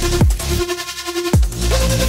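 Electronic music with deep bass hits that slide down in pitch; the bass drops out for under a second mid-way, then comes back with a heavy hit.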